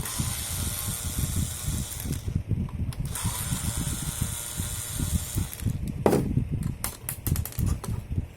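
Cordless drill-driver running in two bursts of about two and a half seconds each, backing out screws to take a laser toner cartridge apart. Several sharp clicks follow near the end.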